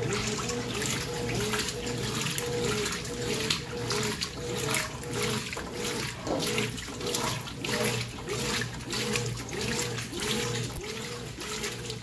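Brastemp 14 kg top-load washing machine agitating clothes at medium water level: water sloshing and splashing, with the drive motor's whine rising and falling in a steady rhythm, about twice a second, as the agitator swings back and forth.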